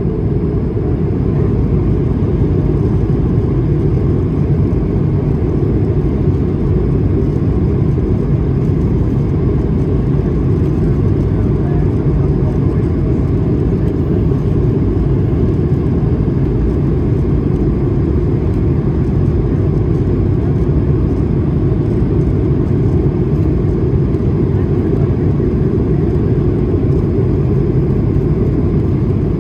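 Steady low rumble of cabin noise inside an Airbus A220-300 airliner in flight: the drone of its Pratt & Whitney PW1500G geared turbofan engines blended with the rush of air past the fuselage.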